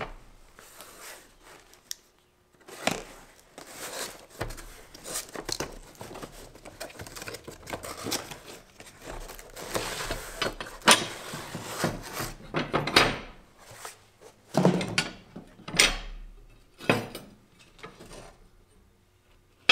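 Cardboard box being pulled open and rustled, then new steel mower blades sliding out and knocking against a steel workbench top, irregular scrapes with several sharp clanks in the second half.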